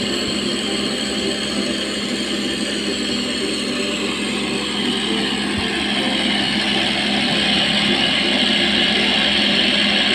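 Cotton candy machine running, its motor-driven spinner head whirring with a steady hum as it spins out sugar floss; the sound grows slightly louder and brighter in the last few seconds.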